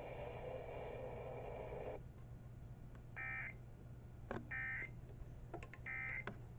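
Emergency Alert System digital data tones heard over a radio broadcast: three short, identical warbling bursts about a second and a half apart, the end-of-message code that closes the alert. A steady hiss cuts off about two seconds in, before the bursts.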